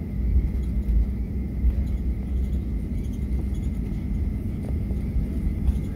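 Cabin noise of a Boeing 737-900ER taxiing: a steady low rumble from its CFM56-7B engines at taxi power and the wheels rolling on the taxiway, with a faint steady hum over it.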